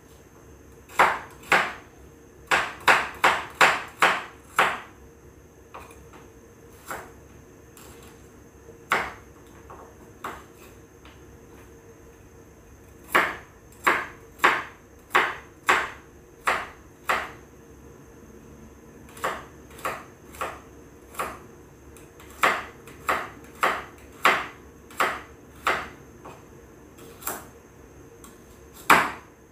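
Sharp hard taps, some single and some in quick runs of about two a second, coming in clusters, over a faint steady hum.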